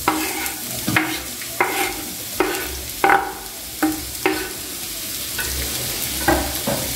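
Sliced white onions and garlic sizzling as they drop into hot oil in a non-stick wok, with sharp knocks and scrapes as a knife pushes them off a wooden cutting board, most of them in the first four seconds and one more near the end.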